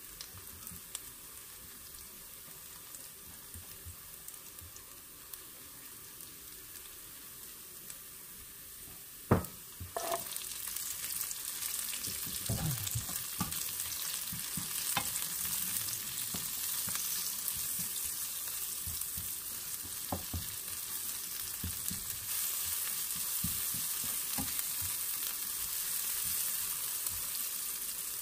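Minced garlic sizzling in oil in a nonstick pan, with a plastic spatula scraping and tapping as it is stirred. A sharp knock comes about nine seconds in as sliced onion goes into the pan, and the sizzle is louder from then on.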